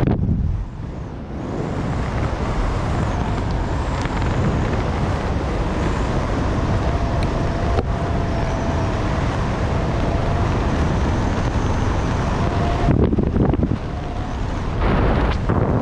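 Wind rushing over the camera microphone during a descent under an open parachute canopy: a steady rush with a deep rumble, louder in gusts near the end.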